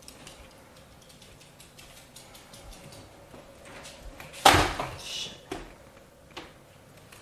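A sudden loud clatter of a hard object about four and a half seconds in, with a short ringing after it, followed by two lighter knocks; faint ticks and rustling before it.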